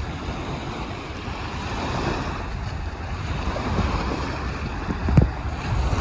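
Small waves breaking and washing up a sandy shore, with wind buffeting the microphone. A single sharp knock about five seconds in.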